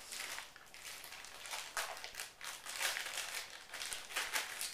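Packaging being handled and crinkled while unwrapping bike parts: irregular rustling and crinkling in quick, uneven bursts.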